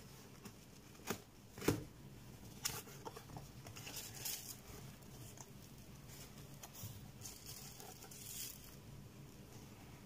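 Cardboard packaging being handled and opened: two sharp knocks a second or so in, then several seconds of crinkling and rustling from the plastic wrap and cardboard flaps.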